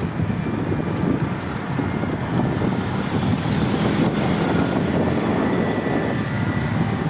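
Roadside traffic noise with wind buffeting the microphone, swelling slightly about four seconds in as a vehicle passes close.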